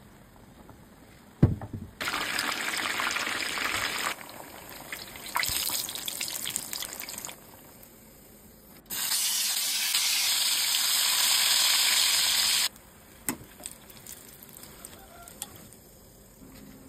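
Hot oil sizzling as tempeh and salted fish deep-fry, heard in three separate stretches that start and stop abruptly, the loudest and longest about nine to twelve seconds in. A single sharp knock comes about a second and a half in, with a few light clicks near the end.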